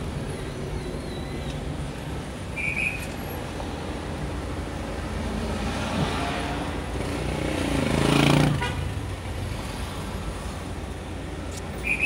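Street traffic heard from a parked car: a steady low rumble of idling and passing vehicles, with a short high beep twice, near three seconds in and at the end. A louder vehicle passes about eight seconds in.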